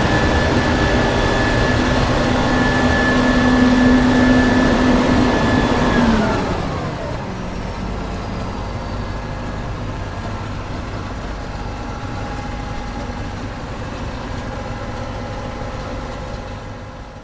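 Combine harvester running at full throttle with a steady high whine. About six seconds in, the whine falls in pitch and the machine runs down, as when the threshing drive is throttled back. It then runs on more quietly at a lower idle.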